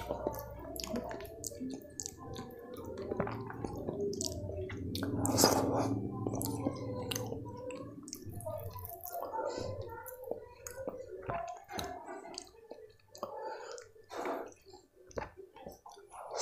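Close-miked wet chewing and mouth smacking of soft khichdi and kadhi, with squelching as fingers mix the rice and lentils with the yogurt curry. Many short wet clicks and smacks, loudest about five seconds in.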